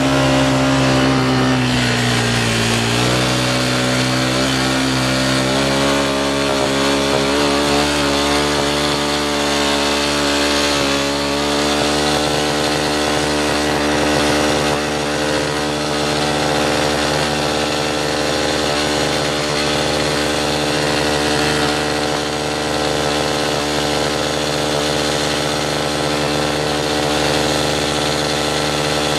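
ATV engine running steadily under way, its pitch dipping slightly about two seconds in and then holding even.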